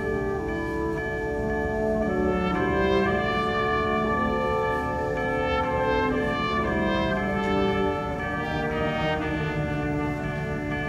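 Student concert band playing, brass to the fore: held chords that shift every second or so, with quick runs of short notes passing over them.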